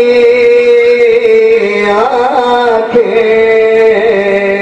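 A man singing a naat, an Urdu devotional poem in praise of the Prophet, solo into a microphone. He draws out long held notes that waver and slide in pitch, with a short ornamented turn about two seconds in.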